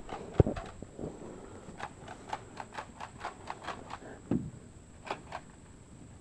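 Camera handling noise as the camera brushes against a dog's coat: irregular soft clicks and taps, with a duller bump about four seconds in.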